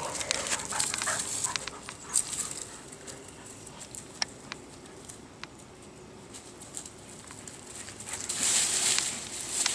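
A beagle puppy and a larger dog playing rough, with faint dog noises early on and scattered light clicks. A louder hissing stretch comes in near the end.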